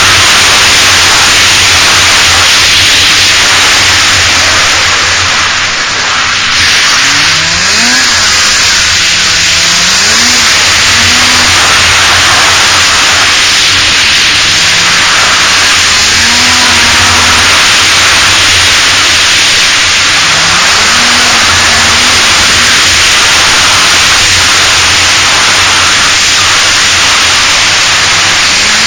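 Yamaha Exciter 570 snowmobile's two-stroke twin, fitted with PSI dual pipes, running on the move under a loud steady rush of noise. Its pitch rises and falls several times as the throttle is worked, most clearly about seven seconds in, around fifteen and twenty seconds, and near the end.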